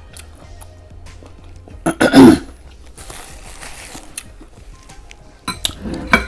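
A loud, short vocal sound about two seconds in, then crunching as a piece of fried chicken is bitten and chewed. Near the end a metal spoon clicks against a glass bowl of sauce, with faint background music underneath.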